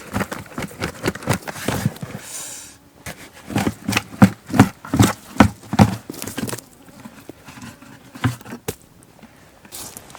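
Footsteps: a run of knocks and thumps, loudest and most even, about two to three a second, between about three and a half and six seconds in, with scattered lighter knocks around them.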